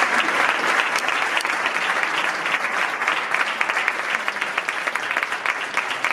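Audience applauding, the dense clapping thinning a little toward the end.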